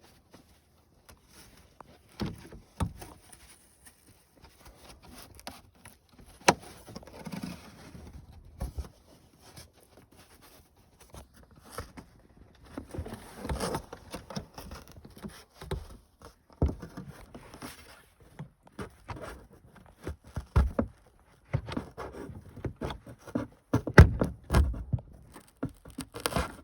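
Hard plastic trim being pushed, scraped and worked into place by hand: irregular clicks, knocks and rubbing, with a few sharper knocks near the end.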